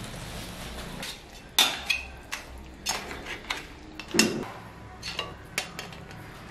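A metal spatula clanking and scraping against a stainless steel wok as noodles are stirred: irregular sharp knocks with a short metallic ring, the loudest about four seconds in. For the first second and a half there is only a steady hiss of sauce cooking in the wok.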